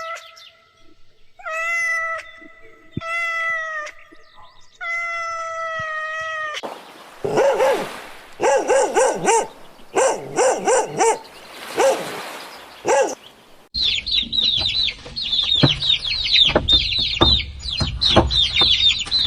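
A run of farmyard bird calls. First comes a rooster crowing, with several long held calls. Then a stretch of rapid, harsh calls follows, and from about 14 seconds in there is a dense chorus of high chirping from many birds.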